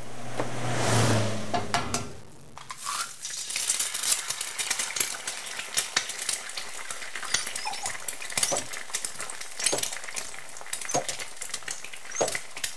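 A low humming rush swells and fades over the first two seconds. Then food sizzles and crackles as it fries, with many small pops.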